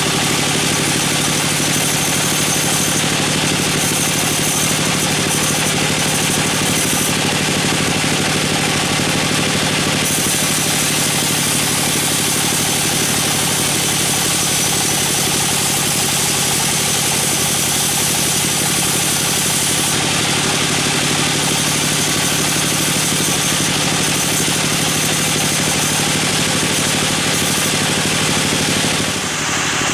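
Engine of a wood-cutting saw running steadily at an even speed, with a dense hiss over the engine note; the level dips slightly near the end.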